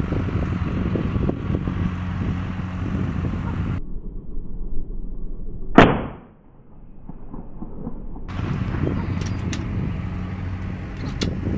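A single PCP air rifle shot, one sharp crack about six seconds in, over a steady low hum. A few light clicks follow near the end.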